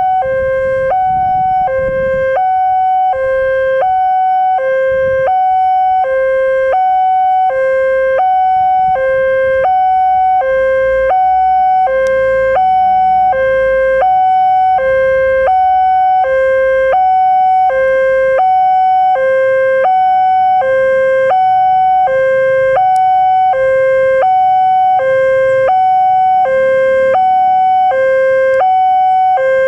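Railway level-crossing warning alarm sounding from the loudspeaker on the signal mast: an electronic two-tone chime alternating a lower and a higher note, one pair about every second and a half. It warns that a train is approaching and the barrier is closing.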